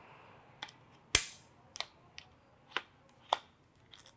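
Camera being lifted off the Peak Design Travel Tripod's ball-head quick-release clamp and clicked back in by its standard plate facing another way: a string of about six or seven sharp clicks and clunks, the loudest just over a second in.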